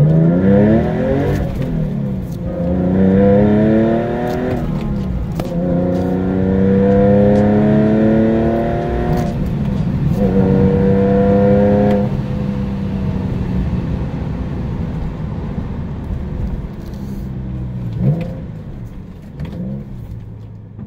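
Rebuilt Porsche M96 flat-six, bored out to 3.6 litres, heard from inside a 996 911's cabin during break-in driving. It revs hard through three gear changes up to about 4,000 rpm, then eases off to a lower, steadier drone, with two short revs near the end.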